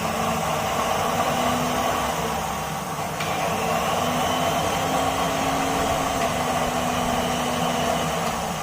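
Mixer grinder motor running steadily at speed, with an even hum and no screeching. Its bushes are freshly oiled and the axle play is adjusted, and the stony grinding noise from the worn-dry bush is gone.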